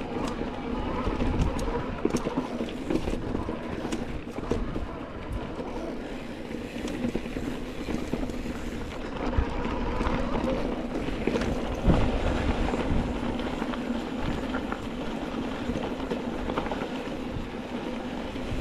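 Mountain bike rolling fast down a dry dirt and gravel trail: continuous tyre rumble over packed dirt with a steady hum underneath. The bike rattles, and a few sharp knocks come from bumps, the loudest about twelve seconds in.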